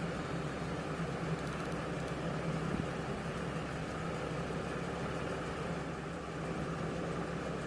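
Steady low hum over a soft hiss, unchanging throughout.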